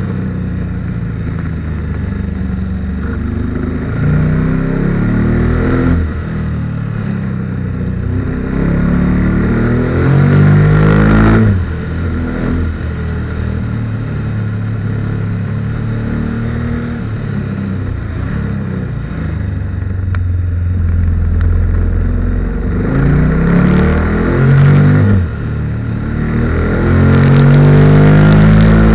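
KTM 1290 Super Duke R's big V-twin engine under way, rising in pitch in about four strong accelerations and dropping back as the throttle closes between them.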